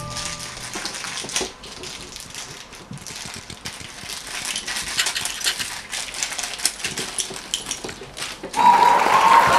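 Small plastic toy pieces clicking and rattling as they are handled and set down on a table, in a run of light, irregular taps. A louder high-pitched sound with a wavering pitch starts near the end.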